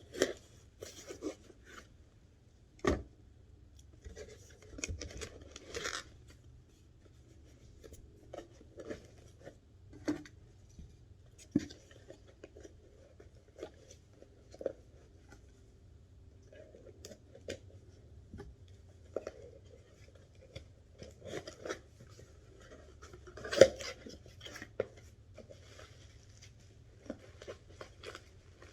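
Cardboard boxes and packing being handled and opened by hand: scattered taps, scrapes and short rustles, with a sharper knock about three seconds in and the loudest knock near the end.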